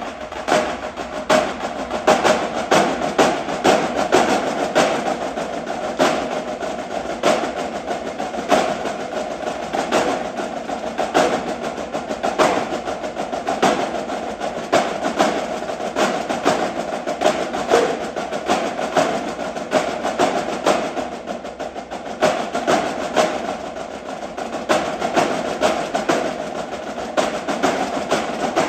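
Percussion ensemble of marimbas, vibraphones and other mallet keyboards playing a busy, rhythmic piece: rapid mallet strikes on the bars with regular louder accents.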